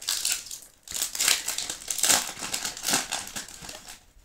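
Foil Yu-Gi-Oh booster pack wrapper crinkling as it is handled and torn open, in irregular bursts of crackle with a short pause about a second in.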